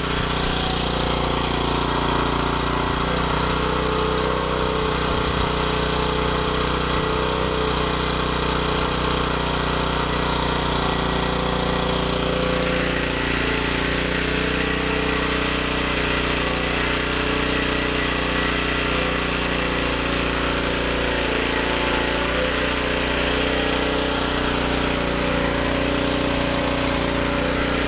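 87cc 3.5 hp single-cylinder four-stroke engine of a portable generator running steadily at governed speed on gasoline. Its fuel valve is shut, so it is running on what is left in the fuel line.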